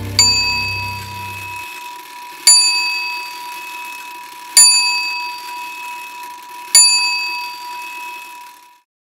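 A high bell struck four times, about two seconds apart, each stroke ringing on and fading before the next. A low throbbing fades out in the first second and a half, and the ringing stops shortly before the end.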